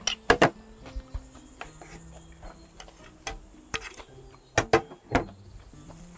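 Rice paddle knocking and scraping against a stainless steel mixing bowl as bibimbap is stirred, with sharp clacks: two about half a second in and three in quick succession near the end.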